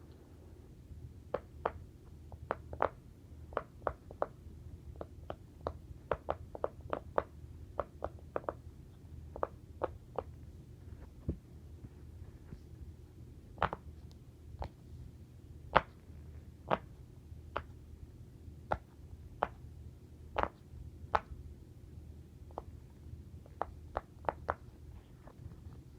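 A long run of short, sharp pops at an uneven pace, about one to three a second with brief pauses, over a steady low background hum.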